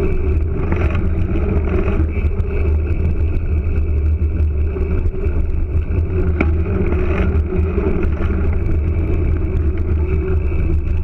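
Mountain bike riding along a gravel road, heard from a camera mounted on the bike next to its knobby tyre: a steady, loud rumble of the tyre rolling on gravel and wind buffeting the microphone.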